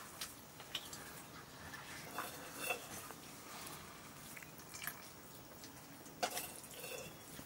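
Faint, scattered clinks and taps of steel bowls and a metal serving ladle, with the soft sounds of a meal being eaten; the sharpest clink comes about six seconds in.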